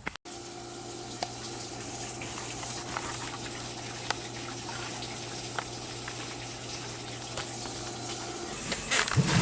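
Steady rush of water flowing down into the well pipe, over a steady low hum; both stop shortly before the end.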